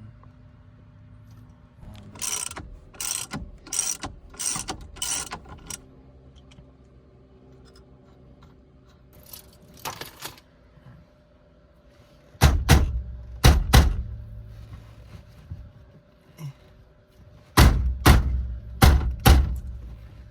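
Repeated sharp knocks and thuds from work on a car's steering wheel and column: a quick run of about six knocks, a few more in the middle, then two clusters of heavier, booming thuds in the second half.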